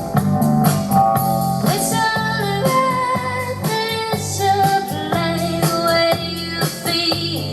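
A song with guitar and a singing voice played loud through a BMW K1600B motorcycle's audio system, its front and rear Infinity Kappa 6.5-inch speakers both running, with a steady beat; the singing comes in about two seconds in.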